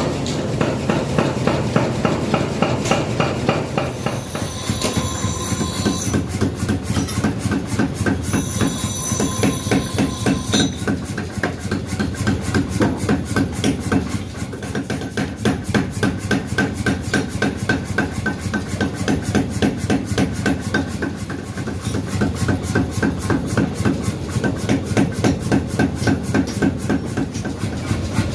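Workshop machine knocking in a fast, steady rhythm of about four strokes a second. Two brief high-pitched squeals ring out within the first ten seconds.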